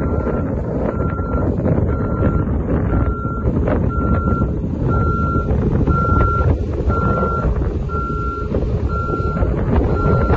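JLG 800-series telescopic boom lift's motion alarm beeping steadily, one short high beep about every three quarters of a second, over the machine's engine running: the alarm signals that a boom function is in use.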